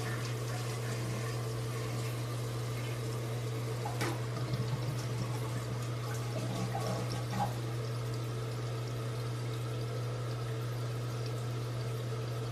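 Toilet flushing and its tank refilling through a newly installed fill valve: steady rushing, hissing water, with a couple of light knocks about four and seven seconds in.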